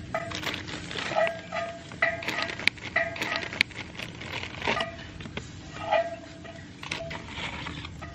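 Siberian husky whining in short repeated cries, each often sliding up a little at the start, as he is tangled in his tie-out line. Underneath, a plastic zip-top bag crinkles with light clicks as orange slices are taken out of it.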